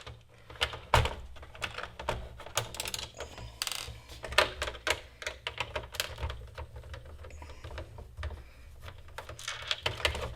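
Irregular clicks and taps of a screwdriver undoing screws from an Amiga 500's plastic case, with small screws clinking as they come out.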